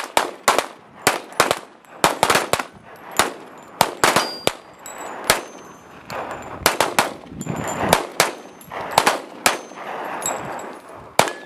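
Several semi-automatic handguns firing at once in a fast, ragged string of shots, several a second, with short high metallic pings of bullets striking steel plate targets. The last shot comes shortly before the end.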